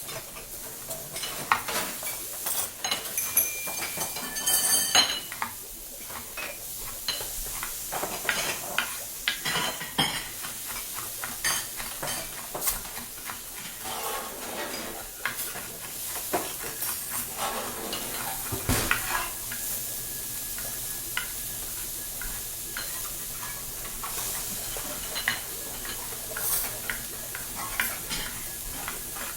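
Kitchen ambience: a steady sizzle of frying with frequent clinks and knocks of dishes, pots and cutlery, and one heavier knock a little past halfway.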